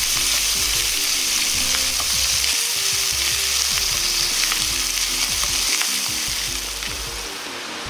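Chicken skin frying in a little oil in a frying pan: a steady sizzle, with light clicks of wooden chopsticks against the pan as the pieces are pushed and spread out. The sizzle eases slightly near the end.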